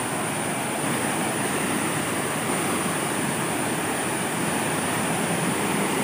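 Steady rush of water from a stream cascading over rocks at a small waterfall.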